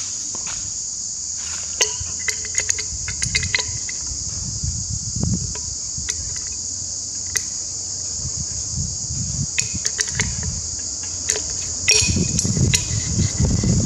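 Light metallic clicks and taps of an open-end spanner working the nuts on the studs of an aluminium timing cover. Underneath runs a steady high-pitched insect drone like crickets, with a low rumble of wind and passing trucks that swells near the end.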